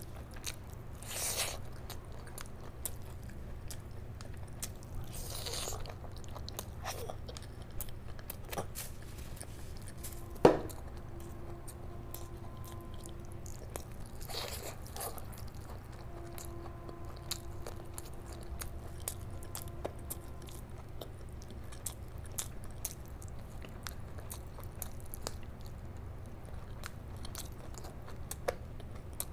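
Close-up wet chewing and biting of curry-soaked chicken and rice eaten by hand, with many small mouth clicks and smacks. One sharp click about ten seconds in is the loudest sound.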